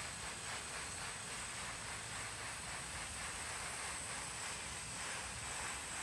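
Steady hiss of a fine water spray from a hose shower nozzle, falling on the owl and the wet pavement.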